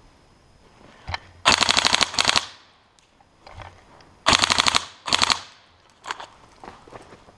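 Airsoft electric rifle firing full-auto: a single shot, then two quick bursts of rapid clicks, and about two seconds later two more bursts. Fainter, scattered clicks follow near the end.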